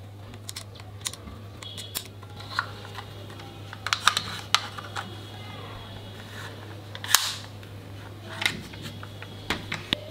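Plastic clicks and snaps of a toy airsoft pistol being handled: BBs pushed into its plastic magazine and the magazine slid into the grip, with the loudest snap about seven seconds in. A steady low hum runs underneath.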